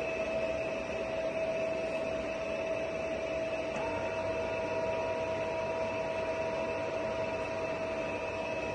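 A Giana heavy-duty lathe runs with a steady machine hum and whine while its carriage is driven in rapid traverse. About four seconds in, a second, higher steady whine joins the sound.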